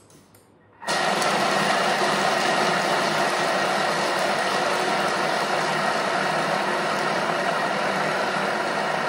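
Thermomix TM6 running on speed four, its blade grinding roasted peanuts and peanut oil into peanut butter: a loud, steady mechanical whirring that starts suddenly about a second in, runs for about eight seconds and cuts off at the end.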